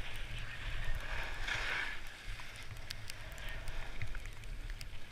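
Skis hissing and scraping over snow as they turn downhill, with a steady rumble of wind buffeting the microphone; the hiss swells about a second and a half in.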